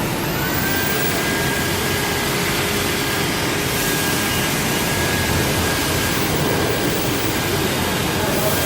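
Semi-rotary letterpress label printing press running with a steady mechanical noise. A faint whine rises just at the start and then holds steady.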